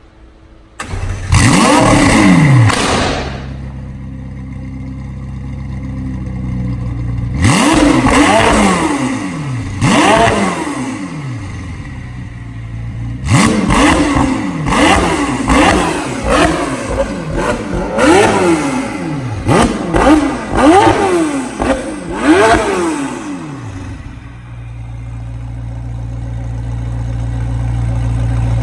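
McLaren 720S twin-turbo V8 breathing through a Fi Exhaust valved aftermarket exhaust, started about a second in with a loud flare that settles to idle. It is then revved twice on its own and given a quick series of about nine blips, each rising and falling in pitch, before it drops back to idle near the end.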